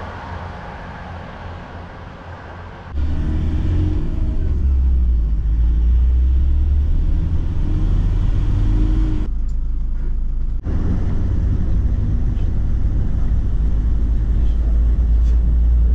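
Low, steady rumble of a moving vehicle. It jumps louder about three seconds in and drops out briefly about two-thirds of the way through, where the shots change.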